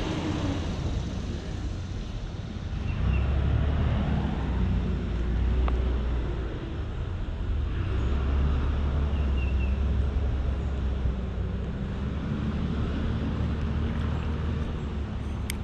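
Low rumble of road traffic crossing the bridge overhead, swelling twice as vehicles pass.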